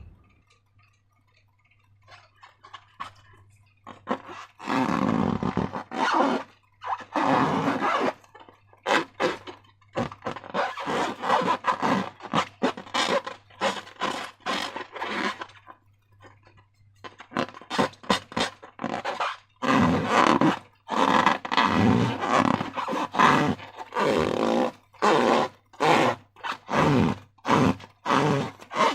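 Slime and rubber balloons being squeezed and handled, giving wet squishing and rubbing sounds: a few longer squelches, then many short ones in quick irregular runs.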